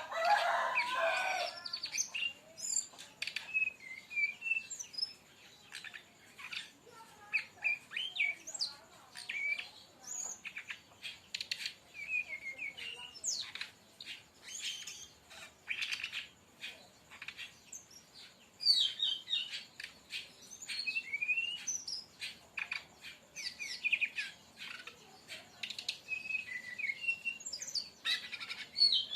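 Brown-chested jungle flycatcher singing a fast, varied song of short chirps and whistled notes in quick succession, with a louder, lower burst at the start.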